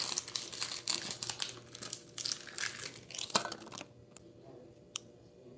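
Foil wrapper of a Yu-Gi-Oh! booster pack crinkling and tearing as it is ripped open by hand, stopping about four seconds in; two faint clicks follow.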